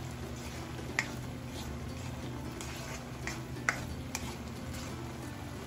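Spatula stirring chopped pork and vegetables around a nonstick wok, with a few sharp clicks of the spatula against the pan, the loudest about a second in and again a little past halfway, over a steady low hum.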